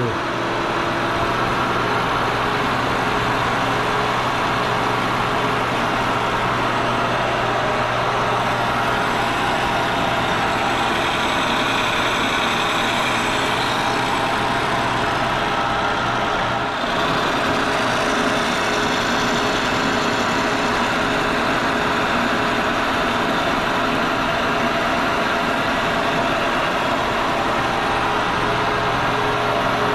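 Kearney & Trecker milling machine running steadily, its carbide face mill taking a light skim cut of about five thousandths across a cast iron fixture plate to true it to the spindle. The level dips briefly about 17 seconds in.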